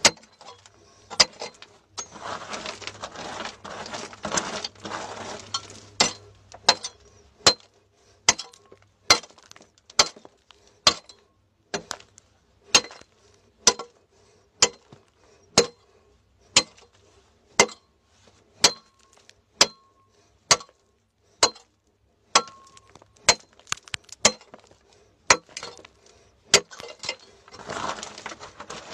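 Steel digging bar striking rocky, hard-packed soil, one sharp strike about every second, steady and evenly paced. A stretch of rougher scraping noise comes in the first few seconds and again near the end.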